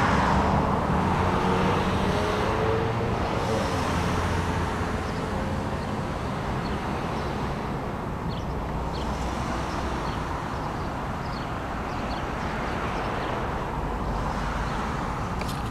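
Road traffic on a multi-lane road: cars passing with tyre and engine noise. The loudest pass is in the first few seconds, then it eases to a steady wash.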